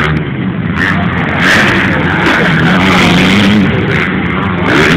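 Motocross motorcycle engines running and revving, their pitch rising and falling.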